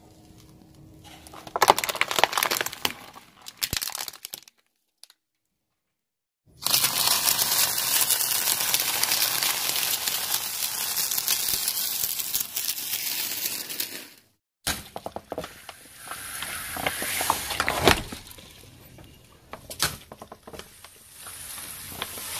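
A car tyre rolling over and crushing things, in three separate short takes. First a burst of cracking, then several seconds of dense, loud crunching as dry fried snack pieces are ground under the tyre, then crackling with one sharp pop as plastic bottles of coloured liquid are squashed.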